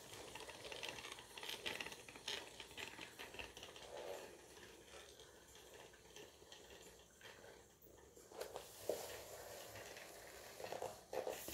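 Faint, irregular clicking and light rattling from a handmade wooden toy train rolling slowly over a wooden floor as a small DC-motor wooden puller drags it by a string. A few slightly louder clicks come near the end.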